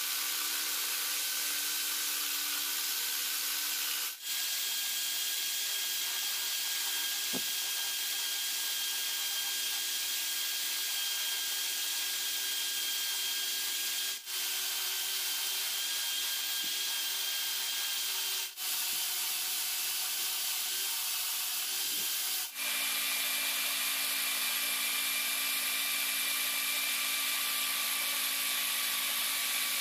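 Electric drill in a drill stand spinning a wooden blank as a makeshift lathe while a flat file and then sandpaper shape it: a steady motor whine under a continuous rasping hiss. There are brief breaks about four, fourteen, eighteen and twenty-two seconds in, and the whine sits at a different pitch after the last one.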